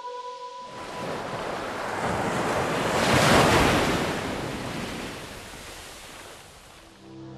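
Ocean wave sound effect: surf swells up to a peak about three seconds in, then washes away and fades out.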